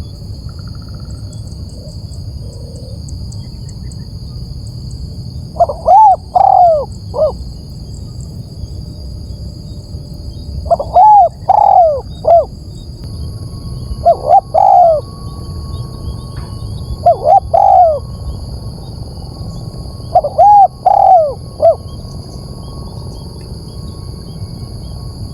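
Spotted dove cooing: five loud phrases, each of three or four rounded coo notes, repeated every three to four seconds, beginning about six seconds in.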